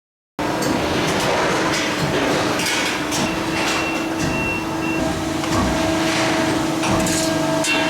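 Press brake working in a metal shop: a steady machine hum with repeated metallic clanks and knocks.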